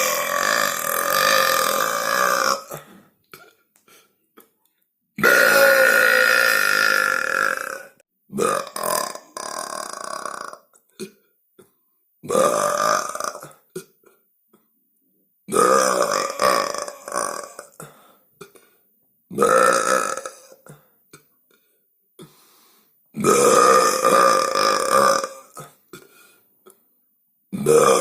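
A series of about eight long human burps, one after another. Each lasts two to three seconds, has a steady pitch and is separated from the next by a short silence.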